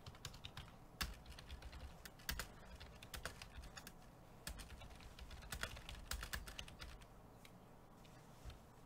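Computer keyboard typing: irregular runs of quick, faint key clicks with short pauses between them.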